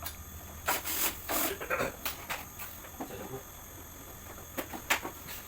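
Scattered short clicks and knocks of a portable air conditioner's plastic casing and parts being handled as the unit is opened up, over a low steady hum.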